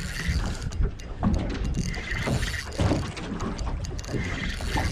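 Spinning reel being cranked in spells during the fight with a hard-running fish, with low steady water-and-wind noise around a small boat.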